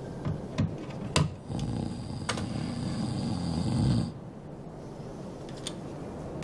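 A man snoring: one long, rough snore that breaks off about four seconds in, with a few sharp clicks around it.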